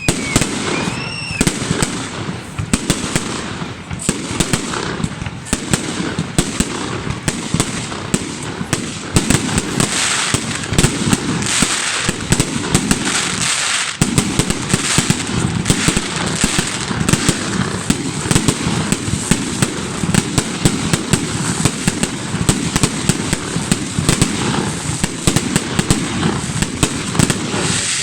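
Holiday fireworks salute: a dense, continuous crackling of many small bangs and pops, with a short whistle about a second in.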